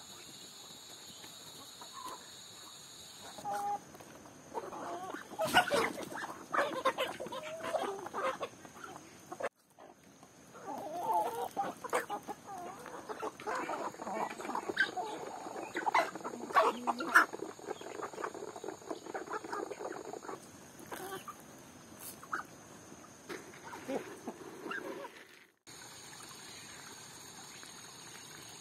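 A flock of chickens clucking while pecking at scattered feed, with many short sharp clicks among the calls. Near the end, a steady trickle of water running into a duck pond.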